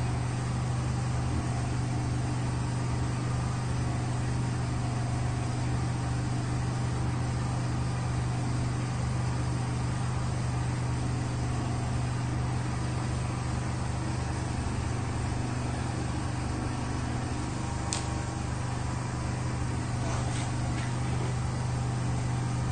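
Steady low hum of a running machine, even throughout, with one sharp click late on and a fainter one shortly after.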